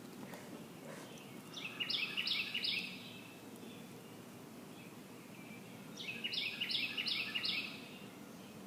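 A songbird sings two short phrases, each of three or four quick repeated notes, about four seconds apart, over a steady low background hum of outdoor noise.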